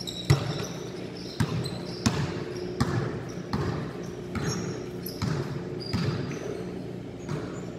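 Basketballs bouncing on a hard court floor: a run of separate thuds at irregular intervals, a little under a second apart.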